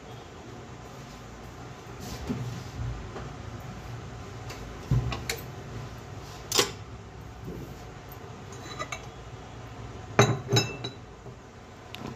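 Kitchen utensils and dishes being handled on a counter: scattered knocks and a few ringing metal clinks, with the loudest cluster of clinks about ten seconds in.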